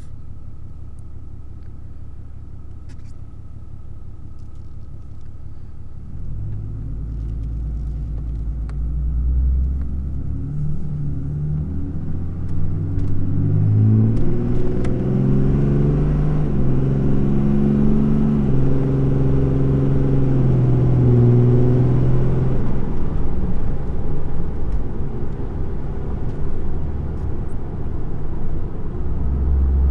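A 2012 Ram 2500's 6.7L Cummins turbo-diesel with a 5-inch straight-pipe exhaust, emissions deleted and on a custom hot street tune, heard from inside the cab. It runs low and steady at first, then at about six seconds goes to wide open throttle, its pitch climbing and dropping back in steps through the gear changes. It eases into steadier running about 23 seconds in.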